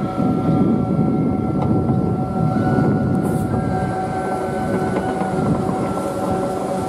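EF63 electric locomotive rolling slowly past, a steady electrical whine with several held tones over the low rumble of its wheels on the rails.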